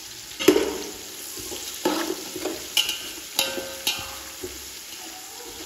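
Sliced onion and whole spices frying in oil and ghee while being stirred in a pot: a steady sizzle, broken about five times by short scrapes of the stirring utensil against the pot.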